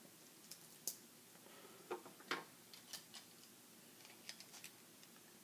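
Faint, scattered clicks and taps of plastic Lego pieces being handled and pressed together, about a dozen small sharp clicks spread unevenly through the stretch.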